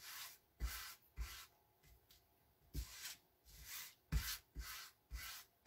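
Hands rubbing an adhesive silkscreen transfer stencil down onto a wood block, an irregular series of short rubbing strokes.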